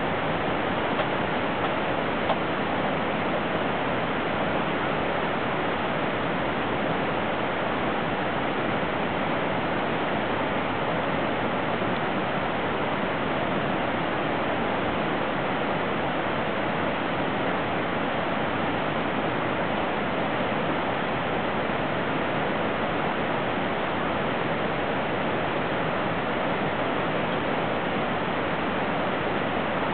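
Steady rushing of flowing water around a hot-spring pool, an even unbroken wash of sound that holds at one level throughout.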